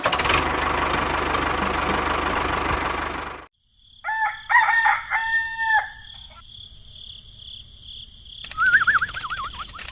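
A loud steady rushing noise that cuts off abruptly, followed by a rooster crowing in several drawn-out notes. Near the end a thin wavering high tone warbles up and down.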